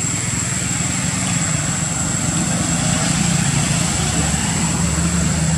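Steady low hum of a running motor-vehicle engine, growing a little louder toward the end, with a constant thin high-pitched whine above it.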